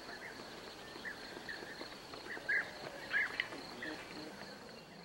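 Chickens feeding on grain on concrete: a few short high-pitched calls, the loudest about two and a half and three seconds in, over soft pecking and a faint steady high-pitched tone.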